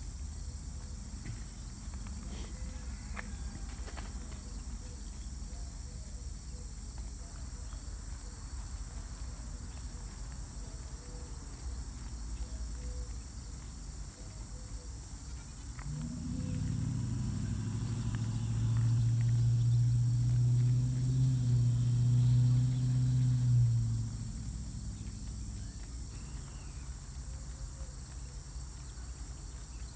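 Steady chorus of insects chirping over a pasture. About halfway through, a low steady hum with an even pitch comes in, holds for about eight seconds as the loudest sound, and fades out.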